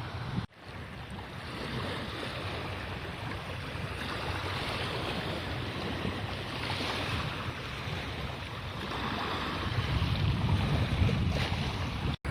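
Wind buffeting the microphone over rushing water, a steady noise that breaks off briefly about half a second in and gusts harder near the end.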